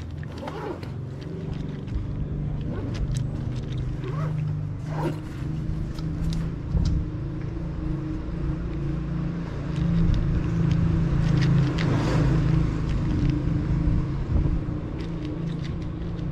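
A tabby cat eating dry kibble from a plastic bowl, with short crunching clicks here and there. Underneath runs a steady low droning hum, louder for a few seconds past the middle.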